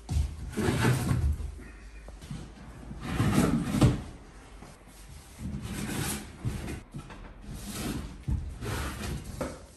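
Wooden posts of a motorcycle shipping crate being pulled out of a cardboard box, with several irregular scrapes and knocks of wood against wood and cardboard.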